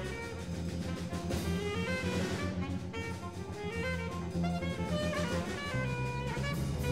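Big band jazz: a horn section playing busy overlapping lines over a drum kit and a low bass line.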